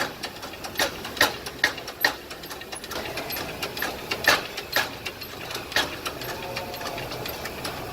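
Shop press pushing a new wheel bearing into a 240SX hub: irregular sharp clicks and creaks as the bearing is forced in smoothly.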